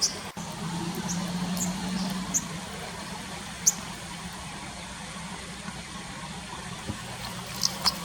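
Steady rush of stream water, with several short, sharp, high-pitched bird chirps at irregular intervals, most in the first four seconds and two near the end. A low hum sits under the water in the first couple of seconds.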